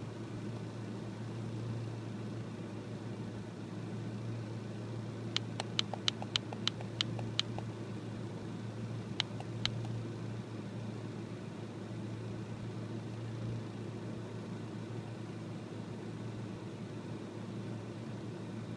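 1996 Ford Ranger's 2.3-litre four-cylinder engine idling with a steady low hum, an idle the owner calls rough. About five seconds in, a quick run of sharp clicks, then two more clicks a couple of seconds later.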